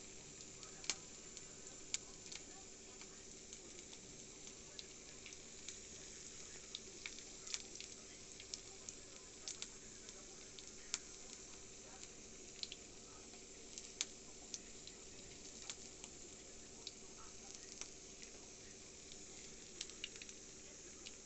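Gringas (tortillas topped with melted cheese and fried meat) frying in oil in a skillet: a steady sizzle with scattered sharp pops and crackles of spattering fat.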